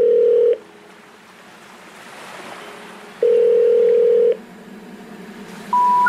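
Telephone line tones: a loud steady tone that cuts off about half a second in and sounds again for about a second midway. A faint rushing hiss fills the gaps, and a single higher beep starts just before the end.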